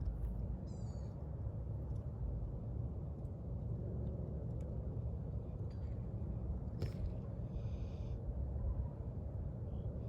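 Steady low outdoor rumble, with a few faint clicks and brief high chirps.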